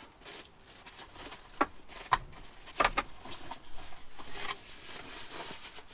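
Packaging and parts being handled: a few sharp clicks and knocks among light rustling as items are unpacked from a box.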